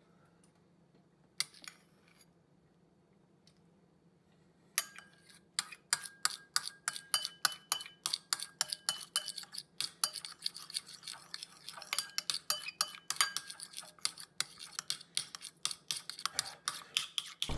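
A spoon clinking and scraping rapidly against a dish of softened ice cream, several strokes a second, starting about five seconds in.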